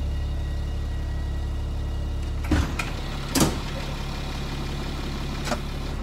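School bus turbo diesel engine idling steadily, heard from the driver's seat. Three sharp clicks sound over it, the loudest about three and a half seconds in.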